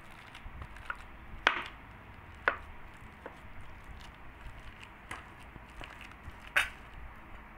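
Soft ripe bananas being mashed with a hand-held utensil in a bowl: quiet squishing with a few sharp knocks as the utensil strikes the bowl, the loudest about one and a half, two and a half and six and a half seconds in.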